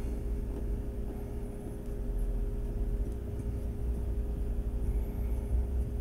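Steady low hum of room background noise, an even electrical-sounding drone with no distinct tool sounds.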